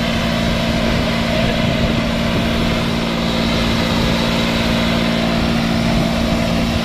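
New Holland 3630 TX Plus tractor's three-cylinder diesel engine running hard at a steady pitch as its four-wheel-drive wheels spin and dig into loose sand.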